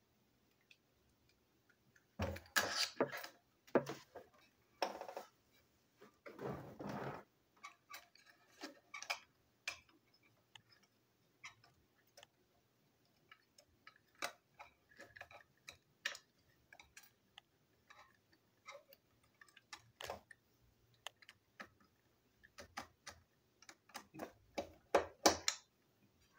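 Small plastic toy train being taken apart by hand with a screwdriver: scattered clicks, taps and scrapes of screws and plastic parts. A few louder, longer rustling handling noises come in the first seven seconds, and a quick run of sharper clicks near the end.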